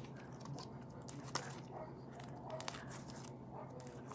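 Homemade slime being squished and stretched by hand, giving faint, scattered sticky clicks and crackles.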